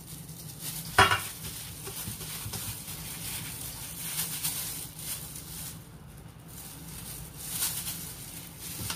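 Soft rustling and squishing of pickled cabbage being packed into a glass jar by plastic-gloved hands, with one sharp knock about a second in, over a low steady hum.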